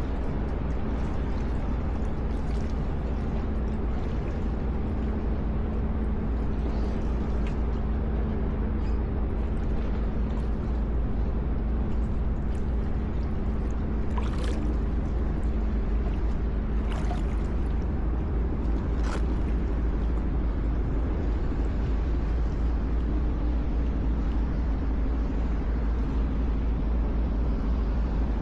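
Harbour water sloshing and gurgling around a kayak over a steady low rumble, with a few light clicks about halfway through. There is no horn blast.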